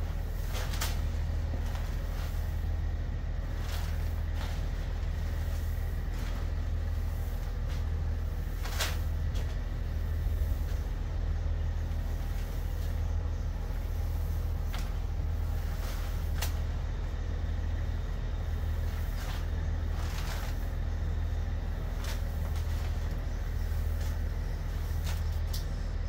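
Hands stirring dry oats and alfalfa pellets in a plastic tote, making scattered short rustles and crunches over a steady low rumble.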